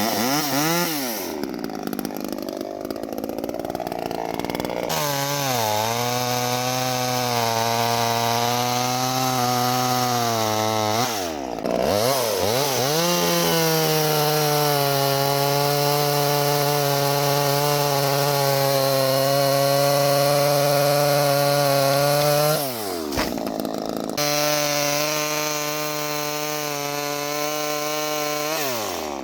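Small 25.4 cc two-stroke gas chainsaw running at high revs and cutting wood. The engine note holds steady for long stretches, dropping sharply and climbing back several times.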